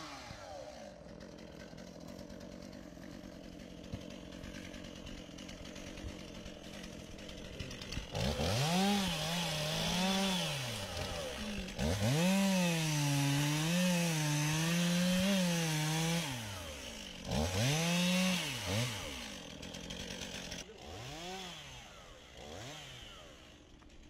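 Chainsaw running slowly at first, then revved hard three times from about a third of the way in as it cuts into a felled log, its pitch sagging and recovering under load. A couple of short blips follow near the end before it drops back.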